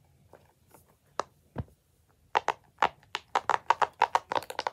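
A fidget toy being clicked by hand: a single click and a low thump, then from about halfway a fast run of sharp clicks, about six a second.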